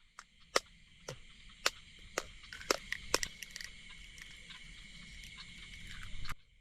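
Steady night chorus of insects and frogs, with scattered sharp clicks over the first few seconds. The chorus cuts off suddenly near the end.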